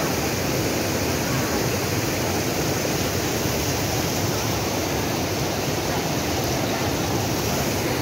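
Mountain stream rushing over rock slabs below a waterfall: a steady, unbroken rush of water.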